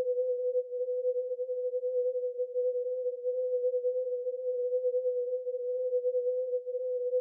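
Steady 500 Hz synthesized tone from the BeeOne brainwave-generator software, wavering rapidly in loudness: an amplitude-modulated entrainment tone.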